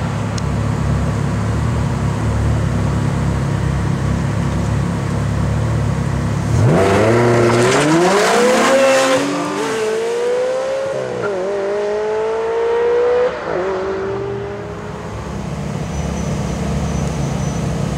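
Sports car engines idling at a start line. About six and a half seconds in, one car launches and accelerates hard. Its engine note climbs through several gears with a short drop at each upshift, and fades as the car pulls away while the idling carries on.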